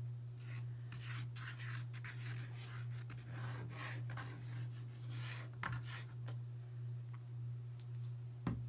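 Fine-tip nozzle of a squeeze bottle of glue rubbing and scraping across a plywood board as lines of glue are drawn on, over a steady low hum. Two light knocks, one past the middle and one near the end.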